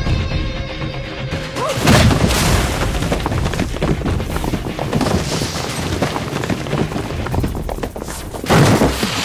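Dramatic film background score with heavy booming hits, one about two seconds in and another near the end.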